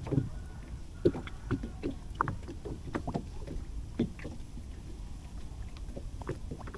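A small boat sitting on the water, with scattered faint ticks and light knocks over a low steady rumble.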